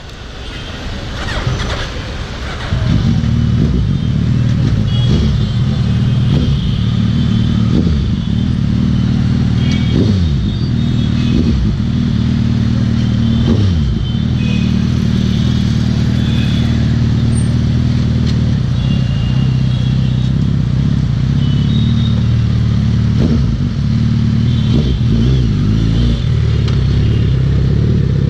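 A motorcycle engine starts idling steadily about three seconds in, with other vehicles passing and sounding in the street around it.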